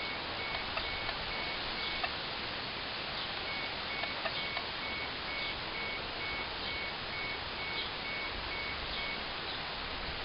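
A high electronic beep repeating about three times a second over a steady hiss. It stops for about a second and a half near two seconds in, then resumes, and faint ticks come about once a second.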